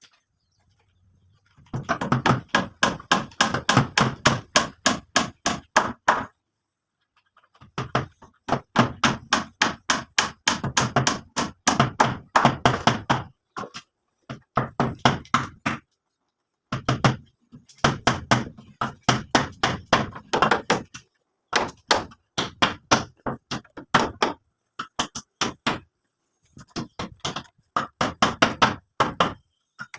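Rapid, even knocking strikes, about five a second, in runs of a few seconds broken by short pauses.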